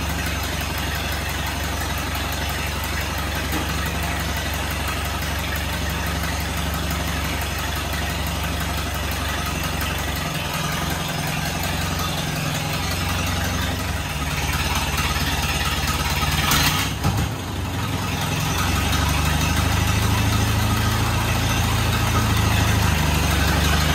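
1937 Allis-Chalmers WC tractor's four-cylinder engine running steadily at idle. About two-thirds of the way through there is a brief sharp noise, after which the engine runs louder.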